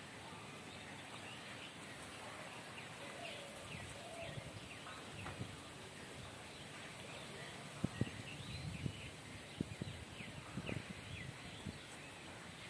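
Faint outdoor ambience with birds chirping repeatedly in short calls throughout. A few soft low thumps come in the second half.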